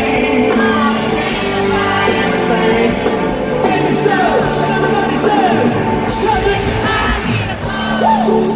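Live country rock band with a male lead singer and electric guitar, heard through an arena sound system from within the crowd, with yells and whoops from the audience.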